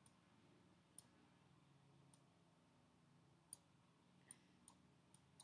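Faint computer mouse clicks, about eight at irregular intervals, over near-silent room tone.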